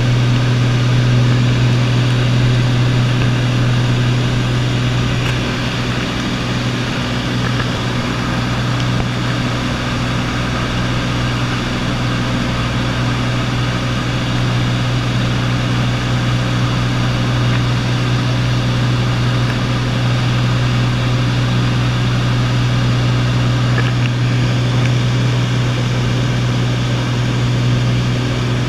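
Single-engine light aircraft's propeller engine droning steadily in cruise, heard from inside the cockpit.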